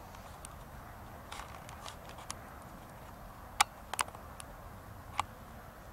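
Faint steady background hiss with a scattered series of short, sharp clicks and ticks, the loudest two close together a little past the middle.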